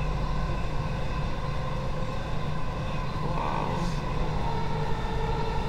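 Dubai Metro train running at speed, heard from inside the car: a steady low rumble with an even hum.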